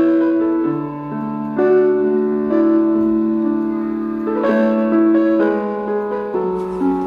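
Background music on a keyboard, with slow, held notes changing about every second.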